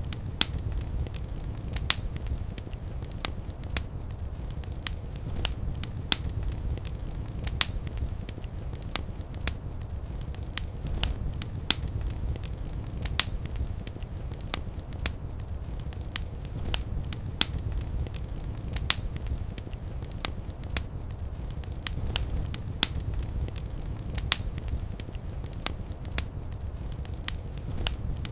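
Fire in a fireplace crackling, with sharp irregular pops a few times a second over a steady low rumble.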